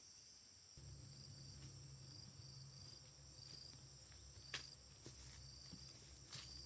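Faint insects calling: a steady high-pitched ringing with a soft chirp repeating about twice a second, over a low rumble that sets in about a second in, with a few light clicks.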